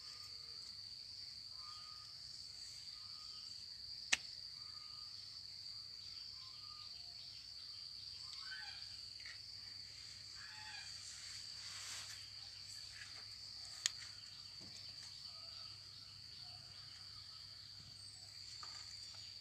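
Steady high-pitched chorus of insects. Two sharp clicks cut through it, about four seconds in and again near fourteen seconds.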